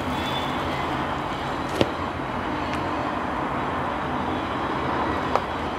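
Steady hum of distant road traffic, with two short light clicks, one a couple of seconds in and one near the end.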